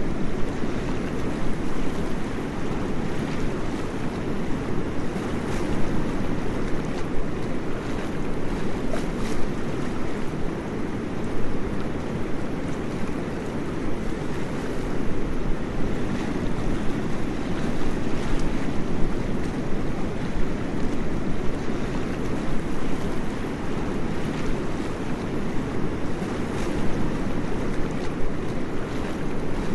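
Waterfall: a steady, dense rush of falling water, deepest and strongest in the low end, with faint splashes ticking through it.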